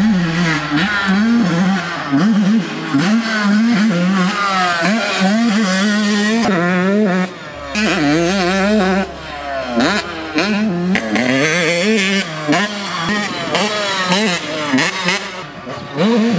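Modified Yamaha YZ125 two-stroke dirt bike engine with a Pro Circuit exhaust, ridden hard: it revs up again and again and drops off as the throttle is shut, with a brief dip in loudness about seven seconds in.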